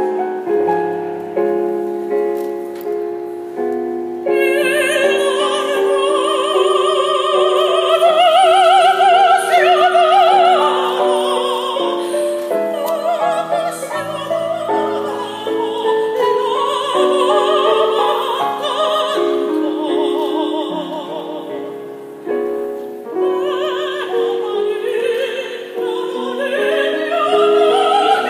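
Operatic singing by a high voice with wide vibrato, accompanied by piano. The piano plays alone at first and the voice comes in about four seconds in, pausing briefly near the end.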